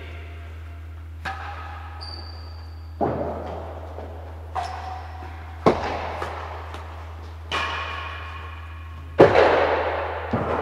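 Real tennis rally: about six sharp knocks of the hard ball off rackets and the court walls, each ringing out in the enclosed court's echo, the loudest about nine seconds in, over a steady low hum.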